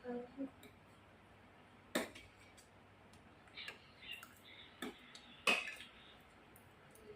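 Kitchenware being handled: a few separate clinks and knocks of utensils against dishes or pans, the loudest about five and a half seconds in, with a short ring.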